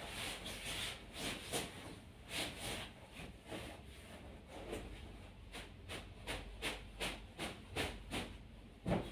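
A pillowcase rustling as a pillow is worked into it and shaken down: a run of quick fabric swishes that come faster in the second half, with a thump near the end, the loudest sound.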